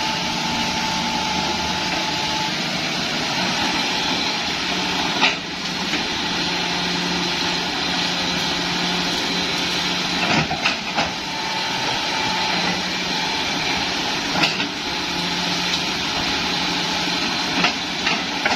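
Hitachi hydraulic excavator's diesel engine running steadily under work, with a handful of sharp cracks and knocks spaced through it: two close together about halfway, and two more near the end.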